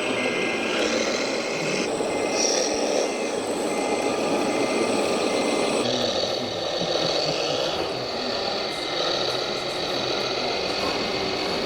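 Radio-controlled model trucks and tractors running, with a steady mechanical noise from their motors and gears. A reversing beeper sounds in short, evenly spaced beeps at several points.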